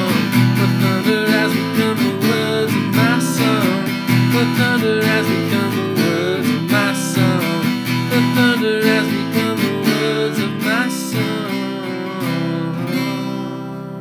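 Acoustic guitar strummed in a steady rhythm, with a wordless vocal melody gliding over the chords. The strumming stops near the end and the last chord rings and fades.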